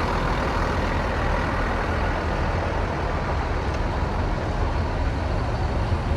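Large coach bus engine running close by with a steady low rumble, without any horn.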